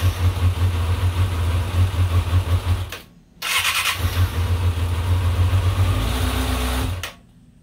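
Kawasaki Balius 250 cc inline-four motorcycle engine running, then cutting out about three seconds in and starting again half a second later. Near the end it sags and stalls as the clutch is let out to test its engagement point.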